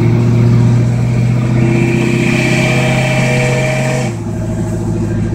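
1978 Chevy K-10 pickup's engine running steadily while driving, heard from inside the cab. About four seconds in, its note drops and quiets as the throttle eases off.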